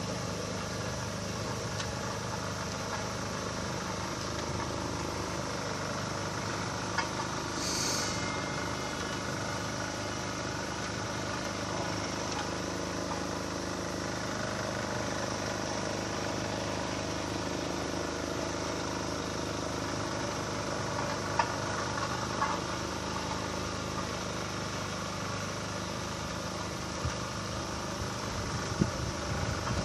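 A vehicle engine running steadily, with a brief hiss about eight seconds in and a few light knocks near the end.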